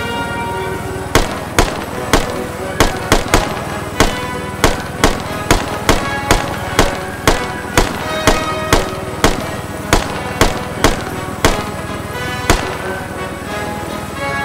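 AR-style semi-automatic rifle firing from a helicopter's open door: about two dozen shots at roughly two a second, starting about a second in and stopping shortly before the end.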